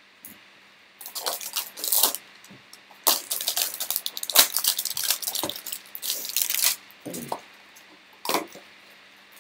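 Clear plastic shrink wrap crinkling and tearing as it is stripped off a cardboard Topps trading-card hanger box, in quick irregular crackles. It ends with a short sharp snap about eight seconds in as the cardboard box is opened.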